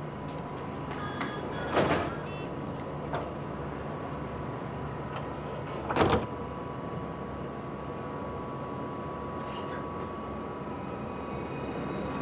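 City bus running steadily at a stop while its sliding doors work, with two short, loud door sounds about two seconds and six seconds in. The engine grows louder near the end as the bus starts to pull away.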